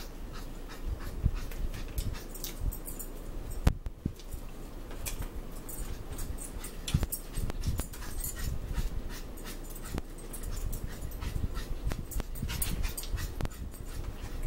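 A pet dog's panting and small whining noises, mixed with close eating sounds: many short clicks of chewing, lip smacks and a fork tapping a plastic food tray.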